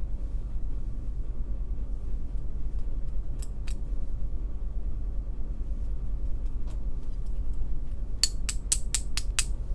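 Small metal lock parts clicking over a steady low hum, with a couple of faint ticks and then a quick run of about seven sharp metallic clicks near the end, from pins and springs being handled while the lock is taken apart.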